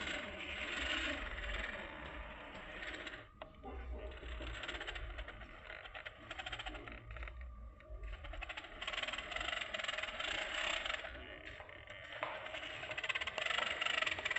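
1/10-scale RC rock crawler's electric motor and gearbox whirring in stretches, pausing briefly a few times and getting louder near the end as the crawler climbs over rocks and concrete slabs.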